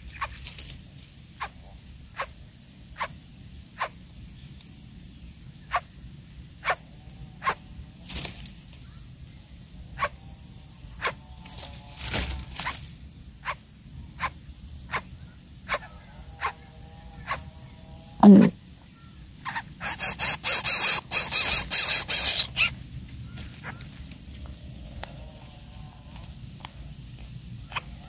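Coucal nestling in its nest. Scattered sharp clicks come about once a second over a steady high drone. About eighteen seconds in there is a short, loud, falling squeal, then a rapid rasping burst lasting about two and a half seconds.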